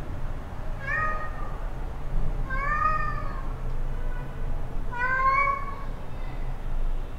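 A cat meowing three times, each short call rising and then falling in pitch, over a low steady hum.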